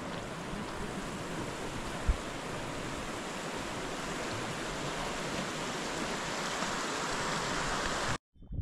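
Steady rush of flowing water, an even hiss with one brief low thump about two seconds in; it cuts off suddenly near the end.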